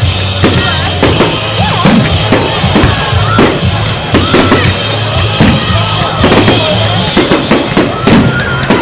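Aerial firework shells bursting in quick succession, a dense run of bangs and crackles, with music playing underneath.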